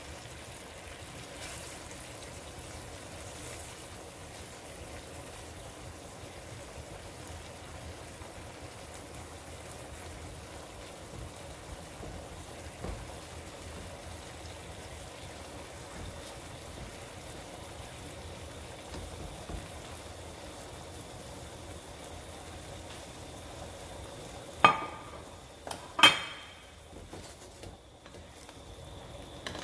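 Seasoned vegetable broth with fish fillets simmering in a pan, a steady bubbling sizzle. About 25 seconds in come two sharp knocks, a second and a half apart.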